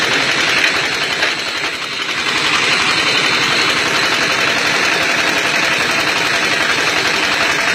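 Brick-making machine running with a fast, steady mechanical rattle, easing off briefly about two seconds in.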